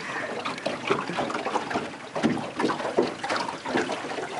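Irregular rustling and crackling from handling: camouflage clothing and cedar boughs brushing against the camera close to the microphone.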